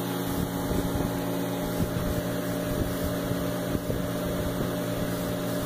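Faint, scattered cracking ticks from a freshly TIG-welded chromoly upper control arm clamped in its welding jig, over a steady mechanical hum. The welder takes the cracks for the metal shifting in the jig, not for the welds cracking.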